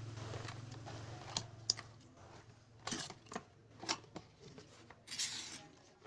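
Cardboard box flaps being pulled open and folded back by hand: a string of sharp crackles and scrapes of stiff cardboard, ending in a longer rasp near five seconds in. A low steady hum fades away during the first two seconds.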